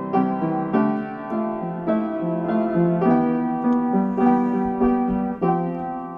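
Background piano music: a slow melody of struck notes, about two a second, each left to ring and fade.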